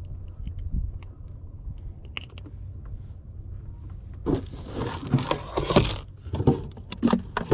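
Rustling, scraping and knocks as a plastic tackle box and the lid of a plastic cooler are handled and opened, loudest from about four seconds in, over a steady low rumble.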